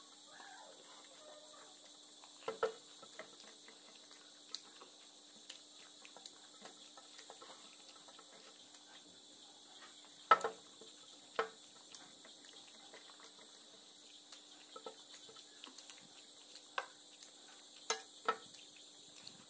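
Faint scattered clinks and taps of a hand working rice on a steel plate, the sharpest about ten seconds in and near the end, over steady chirring of crickets and a low hum.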